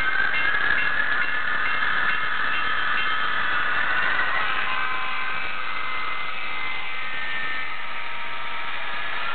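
HO-scale Proto 2000 SD50 model diesel locomotive with an MRC sound decoder playing diesel engine sound through its small onboard speaker as the model runs. A whine rises in pitch over the first four seconds, then the sound holds steady.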